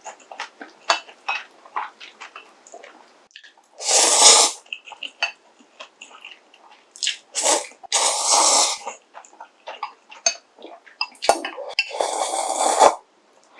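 Loud slurping of ramen noodles from a pork kimchi stew, several slurps of up to about a second each, between soft chewing sounds and small clicks of utensils.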